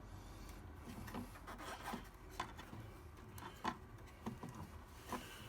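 Irregular light clicks and rubbing as hands handle electrical cable and a plastic socket outlet, working the sleeving and wires. The sharpest clicks come about two and a half and three and a half seconds in.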